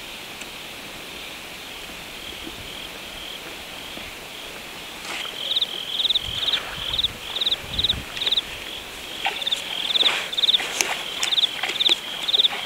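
Crickets chirping: a steady high trill that turns into louder pulsed chirps, about two a second, from about five seconds in. Scattered light clicks and rustles over it.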